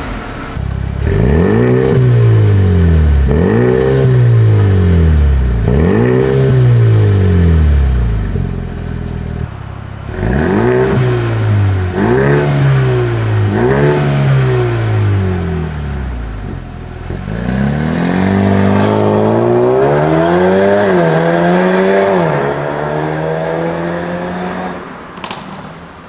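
Mercedes-AMG GLB35's turbocharged 2.0-litre four-cylinder revved through its exhaust: two sets of three quick revs, each rising and falling in pitch. Then a long pull-away, climbing in pitch through one upshift before fading near the end.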